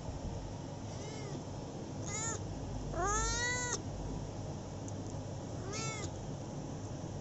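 A cat meowing four times, short mews with the third the longest and loudest, rising in pitch as it begins.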